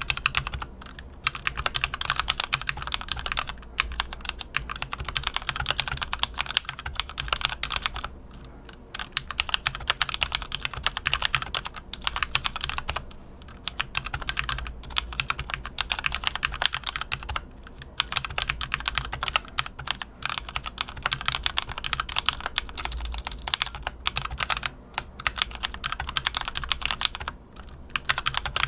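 Typing on a HyperX Alloy FPS Pro mechanical keyboard whose Cherry MX Red linear switches have been spray-lubed: a rapid, continuous run of keystrokes, with short pauses every few seconds.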